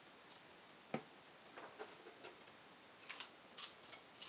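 Spoons clinking and scraping in glass soup bowls: one sharper knock about a second in, then scattered light clicks.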